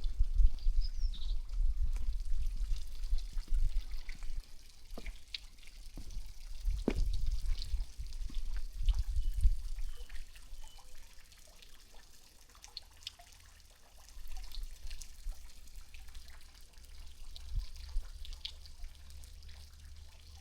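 Outdoor garden ambience: a low rumble that is stronger in the first half, scattered irregular sharp ticks, and a few faint bird chirps.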